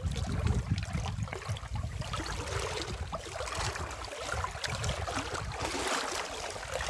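Wind buffeting the microphone in an uneven low rumble, over water lapping at the jon boat's hull with small irregular splashes and knocks.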